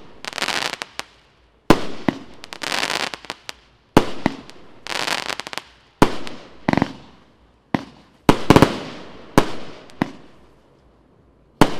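Evolution Fireworks 'Golden Age' consumer firework cake firing shot after shot: sharp bangs about every one to two seconds, several trailed by a dense crackle that fades out.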